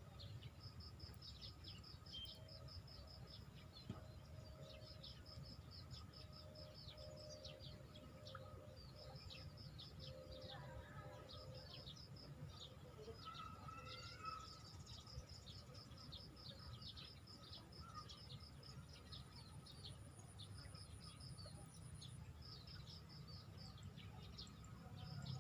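Faint outdoor ambience: small birds chirping in quick, repeated calls throughout, over a low steady rumble.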